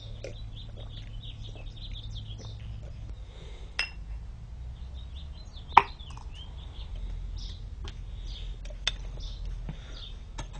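Small birds chirping in the background, broken by a few sharp knocks; the loudest, about six seconds in, is a coconut shell set down hard on a concrete paving slab.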